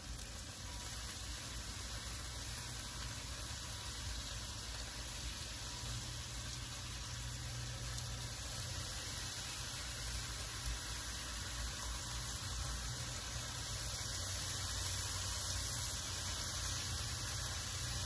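Bacon sizzling on a hot Blackstone flat-top griddle, a steady frying hiss that grows gradually louder as more strips are laid on.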